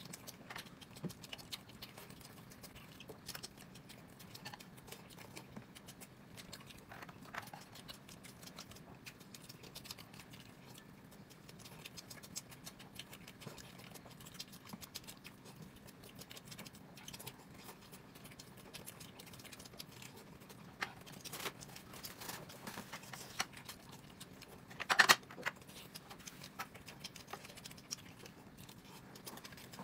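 Someone eating quietly: faint, scattered small clicks, taps and chewing noises, with one louder short sound about 25 seconds in.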